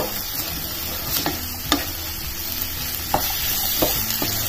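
Radish greens and chickpeas sizzling in oil in a nonstick skillet while being stirred with a spatula, with a few sharp scrapes and knocks of the spatula against the pan over a steady sizzle.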